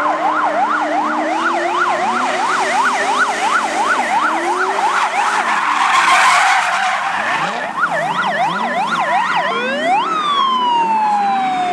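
A siren wails up and down about twice a second over car engines revving and tyres skidding. About ten seconds in, it sweeps up once and then winds down in a long falling tone.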